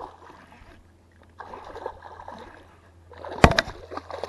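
A small hooked bass splashing and thrashing at the water's surface as it is reeled in close to shore, in bursts, the loudest and sharpest about three and a half seconds in.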